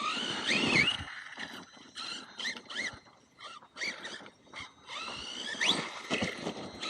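RC monster truck driven in short throttle bursts: a motor whine that rises and falls in pitch with each blip, with brief gaps between and a sharp rising whine near the end.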